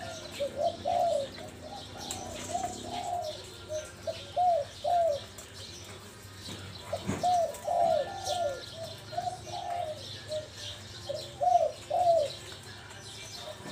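Spotted dove cooing in two bouts of repeated, arched coos with a pause of about two seconds between them. Faint chirps of small birds sound in the background.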